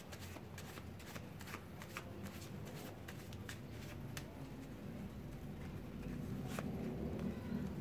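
Tarot deck being shuffled by hand: a quick run of soft card clicks and flicks, thinning out in the second half. A low background hum grows a little louder near the end.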